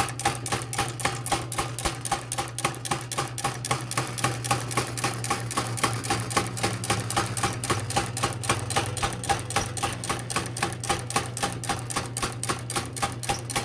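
Foley 385 retoother punching saw teeth into a 0.032-inch 1095 steel plate: a sharp clack about four times a second, one per stroke as the plate advances, over the steady hum of its electric motor.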